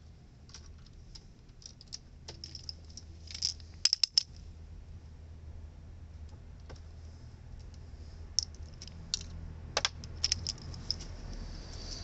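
Scattered light clicks and ticks from hands working a red pipe cutter and a coil of insulated copper air-conditioner pipe, with a quick run of sharp clacks about four seconds in, the loudest, and a few more near the end.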